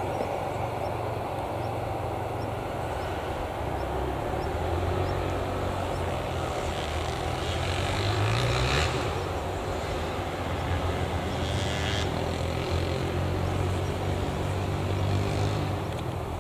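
Steady low engine hum with outdoor noise, swelling briefly about halfway through and again a few seconds later.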